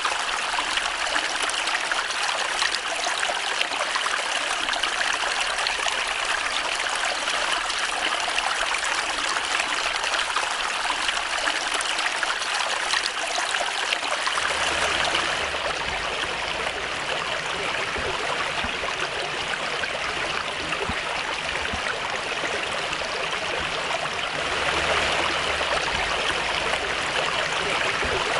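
Small forest brook running and trickling over stones and plants: a steady rush of water. About halfway through the sound changes to a fuller, deeper rush, and it grows a little louder near the end.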